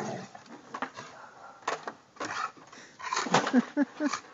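A stick held crosswise in a dog's mouth knocking against wooden fence pickets: several separate sharp knocks, with a quick cluster about three seconds in.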